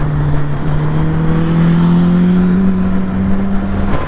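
Suzuki GSX-S1000's inline-four engine pulling under throttle, its pitch rising gradually for nearly four seconds. The rider hears it as sounding like a tractor, not very pretty.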